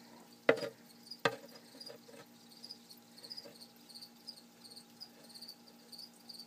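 Crickets chirping steadily, short high chirps repeating several times a second. About half a second and a second in there are two sharp knocks from the metal tongs being worked in the enclosure.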